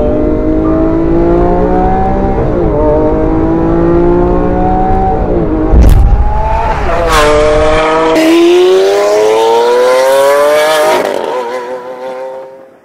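Lamborghini Aventador SV's V12 accelerating hard through a Fi Exhaust valvetronic system. The note climbs in pitch and drops back at each quick upshift, with a sharp crack about six seconds in. It fades away near the end.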